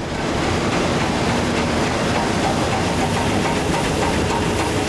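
Flax-processing line machinery running, a loud, steady mechanical din with a faint underlying hum.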